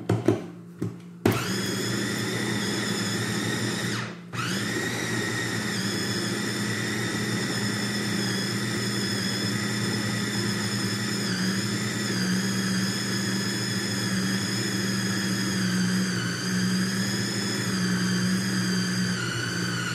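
Electric mini food chopper grinding ground beef with garlic and spices into meatball paste. A few clicks as it is set and pressed, then the motor runs with a steady whine from about a second in. It cuts out briefly around four seconds, starts again, and its pitch wavers a little now and then.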